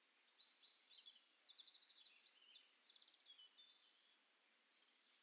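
Faint birdsong over near silence: scattered high chirps, a quick downward whistle, and two short rapid trills, about one and a half and three seconds in.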